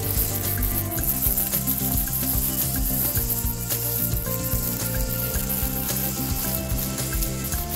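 Background music: sustained notes changing in steps over a low bass line, with a steady bright hiss.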